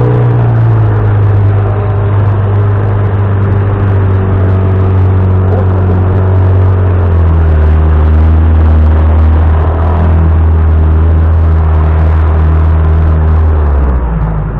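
Outboard motor driving an inflatable boat along, running steadily. Its note steps down slightly about a second in and again about halfway through.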